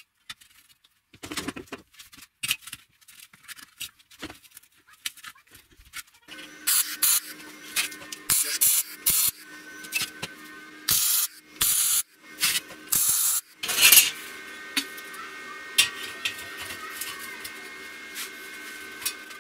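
Steel workpieces being handled on a steel welding table: scattered clinks and knocks, then from about six seconds in a steady machine hum under repeated short, loud bursts of scraping noise.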